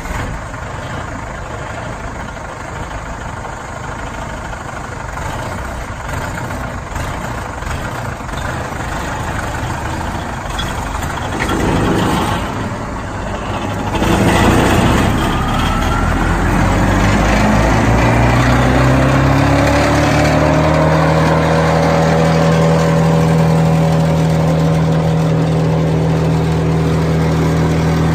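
Engine of a Morbark Blizzard 12 tow-behind wood chipper running, growing louder over the first half. About halfway through it revs up smoothly over several seconds, then holds a steady high speed.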